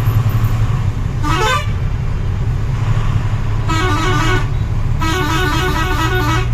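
Truck engine droning steadily, heard from inside the cab, while a vehicle horn sounds three times: a short blast about a second in, another of about a second near the middle, and a longer one with a wavering pitch near the end.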